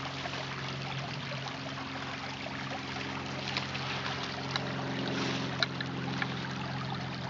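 Footsteps rustling through dry fallen leaves and brushing past twigs, with a few sharp snaps, over a steady low hum.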